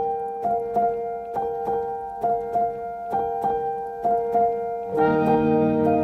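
Background music: a repeating piano figure of struck notes, joined about five seconds in by fuller sustained chords with lower notes.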